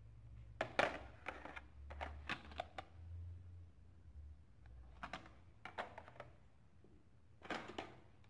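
Faint clicks and crackles of a carded toy car's cardboard backing and plastic blister being handled and set down, in a few short clusters, over a low steady hum.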